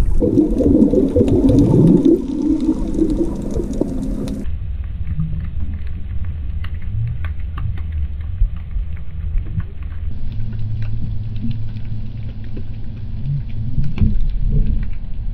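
Underwater sound through the camera: for the first four seconds a warbling, gurgling bubble noise, then a steady low underwater rumble dotted with faint, scattered clicks.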